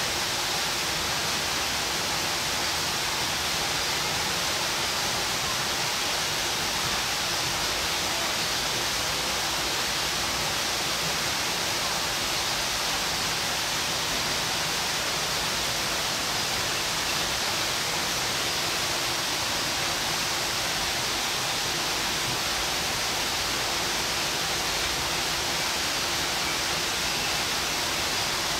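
Steady, even rushing noise, like falling water or hiss, with a faint low hum underneath.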